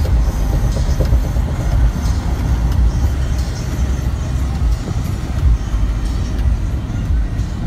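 Steady low road and engine rumble heard inside the cabin of a vehicle travelling at highway speed.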